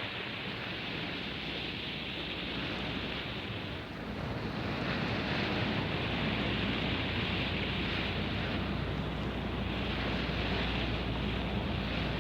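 Sea washing and wind as a frigate gets under way, surging and easing every few seconds over a low steady drone.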